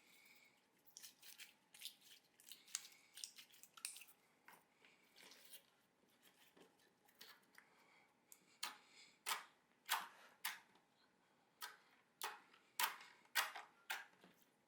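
Slime being squeezed and poked by hand, giving a string of short clicks and pops. They are soft and close together at first, then louder and more spaced out, about one or two a second, in the second half.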